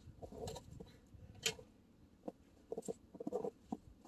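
Irregular short crunches and scrapes of boots and tools on snow and ice around an ice-fishing hole, with a low rumble under most of it.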